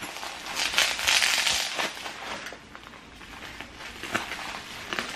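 Packaging crinkling and rustling as it is handled, loudest in the first two seconds and then quieter, with a few light clicks.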